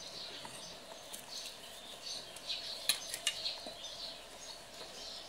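A few light, sharp knocks and scrapes of a steel cleaver against a wooden chopping block as chopped garlic is worked and gathered up. The knocks are separate and irregular, not a steady chopping rhythm.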